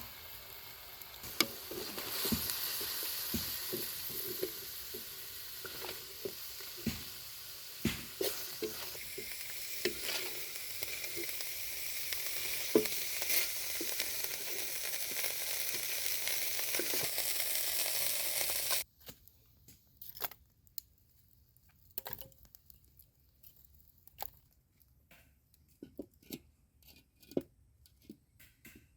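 Chicken organs frying in hot oil in a pan, sizzling steadily while a utensil stirs them with frequent sharp clicks against the pan. About two-thirds of the way through the sizzling cuts off suddenly, leaving only scattered light taps and clicks.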